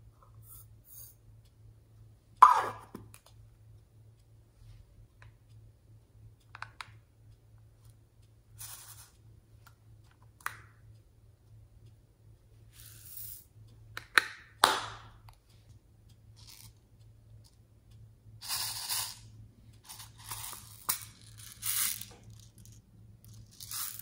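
Small plastic toy containers being handled, with sharp clicks and knocks of their lids and cases. Near the end come several seconds of sequins rattling as they are poured out into a glass dish. A faint low hum runs underneath.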